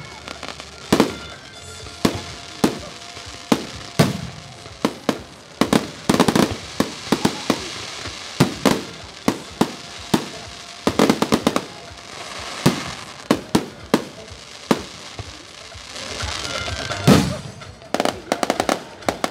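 Aerial fireworks shells bursting overhead in an irregular series of sharp bangs, some in quick runs and a rapid cluster near the end, with music playing underneath.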